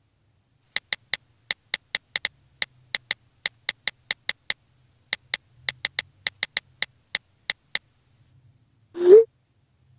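iPhone keyboard clicks: about thirty quick taps over some seven seconds as a text message is typed. About a second after the last tap comes a single louder whoosh that rises in pitch, the iMessage send sound.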